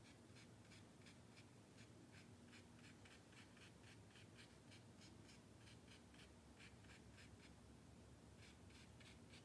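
Faint, quick strokes of a watercolour brush scratching on paper, about three light strokes a second, as short fur strokes are laid in.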